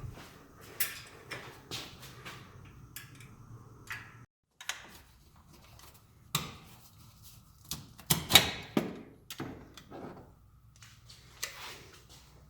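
Irregular clicks, clacks and knocks of plastic parts being handled as the air filter housing on a Can-Am Maverick X3 is opened and the filter taken out, with a louder clatter of knocks about eight seconds in.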